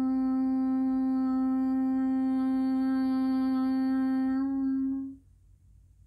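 A woman's voice humming one long, steady note with her lips closed; the hum fades out and stops about five seconds in.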